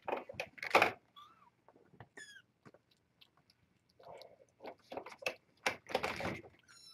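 Young kittens mewing: thin, high calls that bend in pitch, heard about three times. Short, louder noisy bursts come near the start and about six seconds in.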